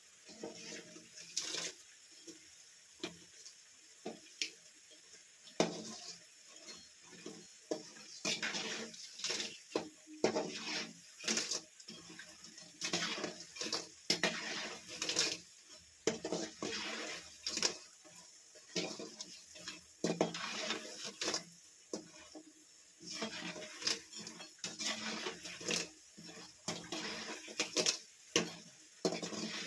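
Doddapatre (Indian borage) leaf bajji deep-frying in hot oil, sizzling, with irregular clinks and scrapes of a metal utensil against the pan.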